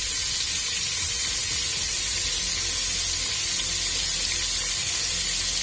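Cubes of meat sizzling in hot ghee and butter in a pot as they sear: a steady, even hiss with no breaks.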